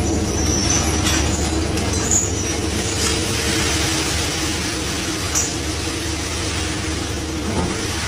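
Steady drone of a scallop dredger's engine and deck machinery, with a few light clicks of scallop shells being raked and sorted on the deck.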